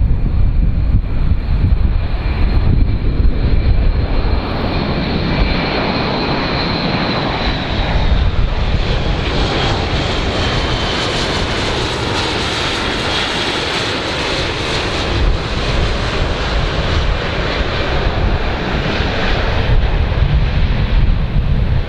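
Airbus A400M Atlas flying low, its four TP400 turboprop engines with eight-bladed propellers running at a steady drone. A high whine rides over a low rumble and dips slightly in pitch a few seconds in.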